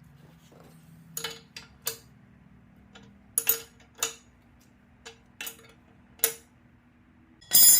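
Irregular metallic clinks and clicks of a wrench and bolt hardware while a caster foot is tightened onto a milling machine's base, about a dozen in all, with the loudest and longest clatter near the end.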